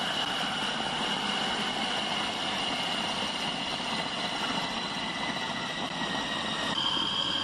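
Electric food processor running steadily with a high motor whine, its blade churning minced pork and seasoning into a paste. The whine steps up a little in pitch near the end.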